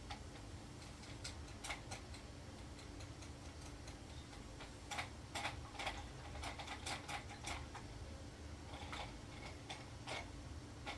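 Scattered light clicks and taps of painting tools against a plastic paint palette, bunched about five to seven and a half seconds in and again around nine to ten seconds, over a faint steady hum.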